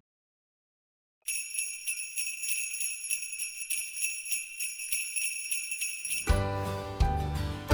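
Silence for about a second, then jingle bells shaken steadily for about five seconds. Near the end, music with a bass line comes in underneath.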